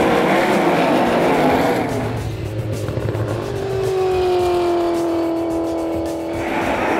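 V8 race car engines running at speed on track. From about three and a half seconds a single engine holds a steady high note that sags slightly in pitch, until the sound changes just past six seconds.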